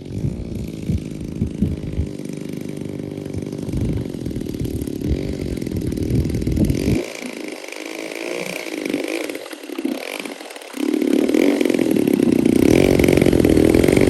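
DLE 55 single-cylinder two-stroke gas engine of an RC warbird running, its note shifting through the first part, then getting much louder and holding steady from about eleven seconds in.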